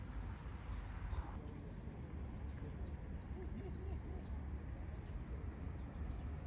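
Outdoor ambience: a steady low rumble, with faint distant voices in the middle.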